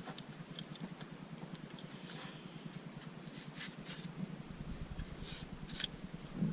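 Faint clicks and rustles of hands checking hoses and connectors in a car's engine bay, over a steady low hum. A low rumble joins in after about four and a half seconds.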